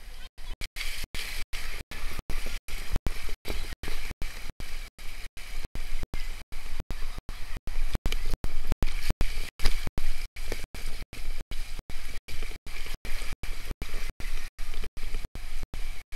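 Water rushing along a water slide as a rider with the camera slides down it: a steady rushing noise with a low rumble underneath. The sound is chopped by brief dropouts about four times a second.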